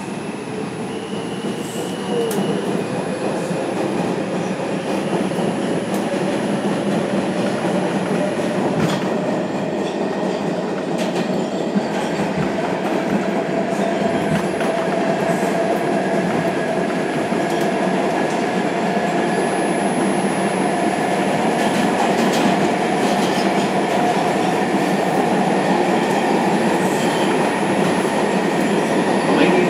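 Inside a moving R142 subway car: steady rumble of steel wheels on rail with a few clicks from rail joints, under a whine that rises slowly in pitch over the first two-thirds as the train gathers speed on the express run.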